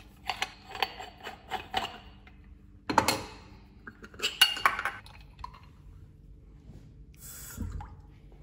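Bialetti Brikka aluminium moka pot being unscrewed and taken apart by hand: a run of metallic scrapes and clinks from the threads and parts, a louder knock about three seconds in as a piece is set down, then another cluster of clinks. A brief rustle and a dull thump come near the end.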